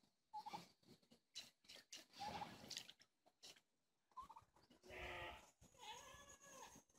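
Several short animal calls, the longest about five and six seconds in, with rustling and scuffing noises between them.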